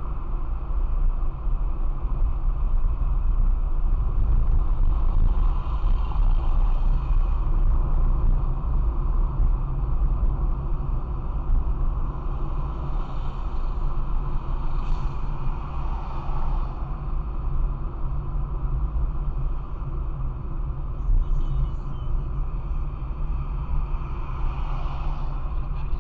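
Steady low rumble of a car driving at a constant cruising speed, engine and tyre noise heard from inside the cabin.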